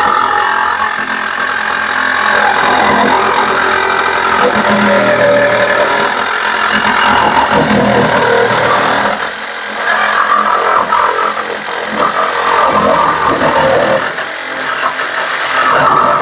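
Milwaukee M18 cordless reciprocating saw with a fine metal-cutting blade sawing through a sheet-metal van panel, running loud and continuous. It eases off briefly twice, about nine and fourteen seconds in.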